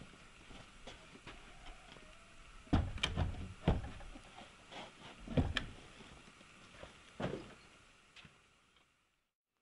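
A series of irregular dull thumps and knocks, six or so spread over several seconds, then a sudden drop to silence near the end.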